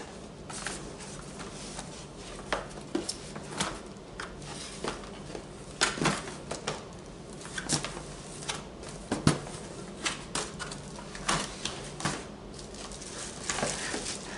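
Cardboard box and plastic-wrapped LED shop light handled by hand: irregular rustling, scraping and sharp knocks as the box flaps are opened and the wrapped fixture is slid out. The loudest knocks come about six and nine seconds in.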